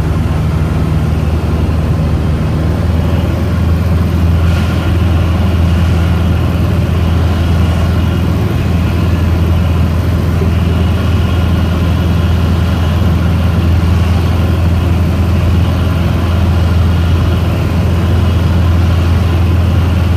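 Light single-engine propeller aircraft's piston engine and propeller droning steadily at cruise, heard from inside the cockpit.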